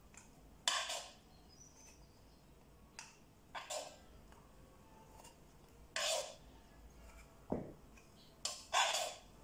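Metal fork scraping and clinking against a frying pan, five or six short scrapes a second or two apart, as meat-and-mushroom filling is scooped and pushed into cannelloni tubes.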